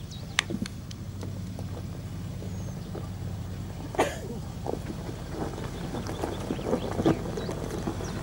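Toyota Land Cruiser's engine running steadily at low revs as it crawls down a steep rocky track, with tyres crunching over stones and a few sharp knocks, the loudest about four seconds in and near the end.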